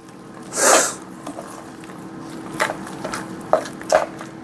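Thick cream cheese mixture being stirred with a utensil in a stainless steel mixing bowl: wet squishing, with short scrapes and clicks of the utensil against the bowl in the second half. A brief rush of noise about half a second in is the loudest sound.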